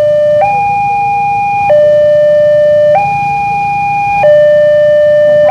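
Railway level-crossing warning alarm: an electronic two-tone signal alternating evenly between a higher and a lower tone, each held about 1.3 seconds, sounding while the crossing is closed for a train.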